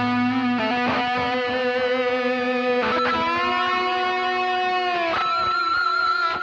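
ESP LTD H-401QM electric guitar with DiMarzio Titan pickups, played with a distorted tone and delay: long held lead notes with vibrato. The notes change about a second in, at three seconds and just past five seconds.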